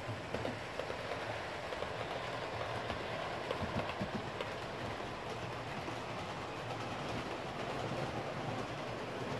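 Model trains running on a layout: a steady rumble of locomotive motors and wheels on the track, with light irregular clicks as wheels pass over rail joints.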